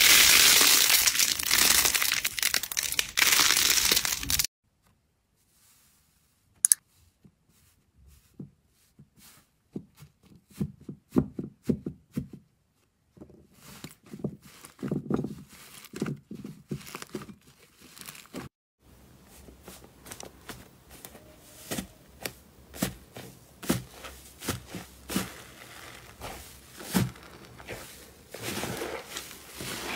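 Hands squeezing, pressing and pulling fluffy slime, giving a string of sticky crackles, small pops and soft squelches. The first four seconds hold a loud, dense crinkling noise that stops suddenly at a cut.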